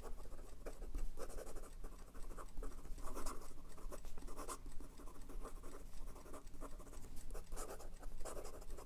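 Fine steel nib of a Jinhao x159 fountain pen scratching across notebook paper in quick cursive writing, a run of short irregular pen strokes.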